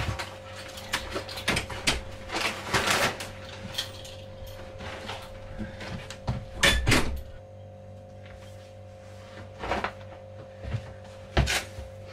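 Packing and rummaging noises: clothes and a backpack being handled and stuffed, giving irregular rustles and knocks. The sharpest knocks come about seven seconds in and near the end. A steady low hum runs underneath.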